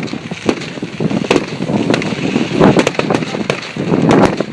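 Firework display in full volley: a rapid run of sharp cracks and crackles, several a second, with deeper shell bursts booming among them every second or so.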